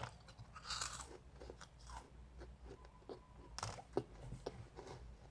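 Close-up crunching and chewing of a crisp, dry meringue cookie: a run of small brittle crackles, with louder crunches about a second in and again near four seconds.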